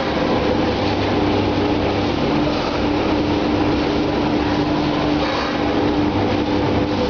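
Egg tray pulp-moulding production line running: a steady, loud mechanical din with a constant droning tone.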